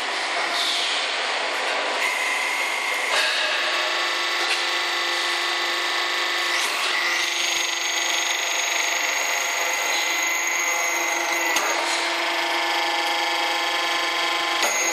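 Fire extinguisher cylinder deep drawing machine running: a steady mechanical whine made of several tones, with a few sharp clicks. A high thin tone comes in about seven seconds in and cuts off near twelve seconds.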